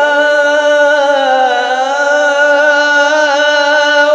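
A male Quran reciter's voice holding one long melodic note in tajweed-style recitation, the pitch wavering only slightly and breaking off near the end.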